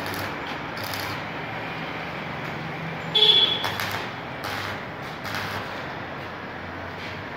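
Electric arc welding on a steel grill frame: the arc crackling and hissing steadily over the low hum of the welding machine, with a brief loud toot about three seconds in.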